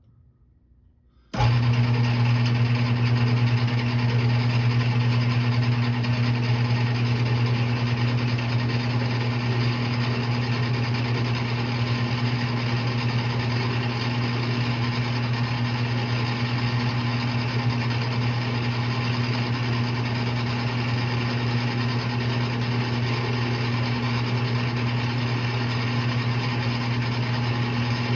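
Metal lathe running steadily with a strong low hum. It comes in abruptly about a second and a half in.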